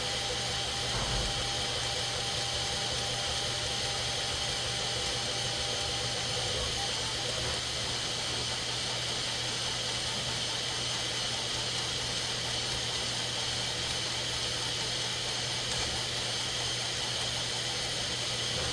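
Bambu 3D printer running while it prints the top surface of a part: a steady hiss with a low hum underneath, even throughout.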